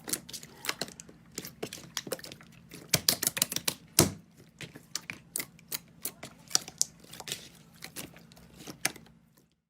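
Slime being pressed and squished by hand, giving quick, irregular crackles and pops, thickest about three to four seconds in, that stop just before the end.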